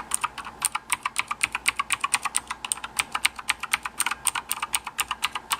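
Keys of a Jelly Comb 87-key mechanical keyboard being tapped rapidly and steadily, a continuous run of sharp key clicks at about eight a second.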